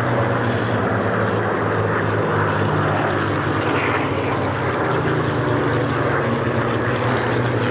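Piston-engined propeller aircraft running, a loud steady drone that holds its pitch.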